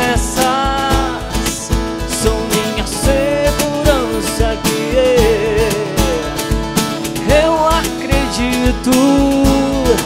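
Live acoustic band playing a worship song: a steel-string acoustic guitar strumming over a steady cajón beat, with a singer's melody line.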